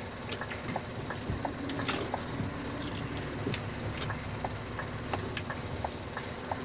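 Heavy truck's diesel engine running steadily at low speed while the truck reverses a few meters, heard from inside the cab. Short light ticks come over it about twice a second.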